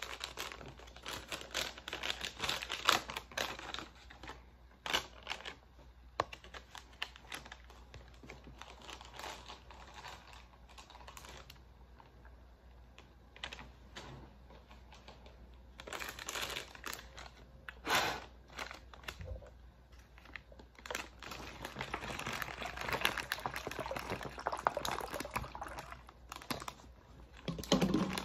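Plastic MRE packaging being handled and opened: irregular crinkling and crackling with many small sharp clicks, coming in bursts with quieter stretches between.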